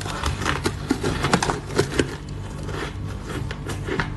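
Close-miked crunching of soft, frosty freezer ice being bitten off a block and chewed: a quick, irregular run of crisp crunches, sharpest between one and two seconds in.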